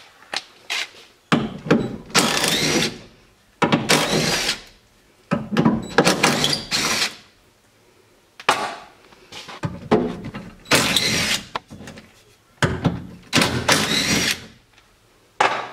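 Cordless drill with a socket, run in about six or seven short bursts, backing out the hinge bolts of a rusty truck door.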